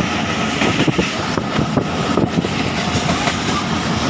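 Millat Express passenger train running along the track: a steady loud rumble of wheels on rails, with scattered clicks and knocks.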